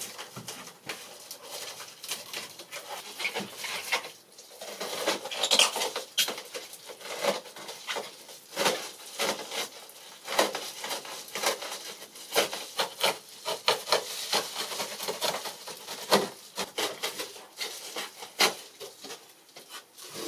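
Foil-faced bubble insulation crinkling and rustling as it is handled, pressed and smoothed onto the wall panels, with many irregular crackles and light taps.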